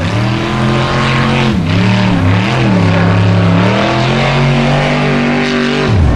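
Formula Offroad buggy's engine revving hard under load on a steep dirt hill climb. The pitch dips briefly twice as the throttle is eased and reapplied, then drops sharply and climbs again near the end.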